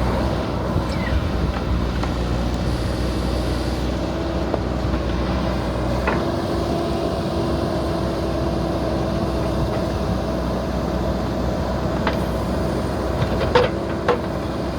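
Heavy diesel engine running steadily, its note changing about six seconds in, with two sharp knocks near the end.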